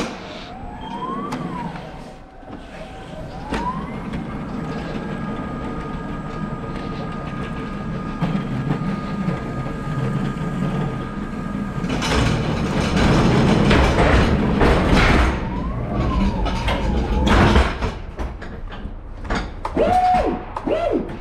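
Electric pallet truck's drive motor whining, rising and falling in pitch as it speeds up and slows, then holding a steady whine while it travels. From about twelve seconds in, a louder stretch of rumbling and clatter from the rolling truck, with more short rising-and-falling whines near the end.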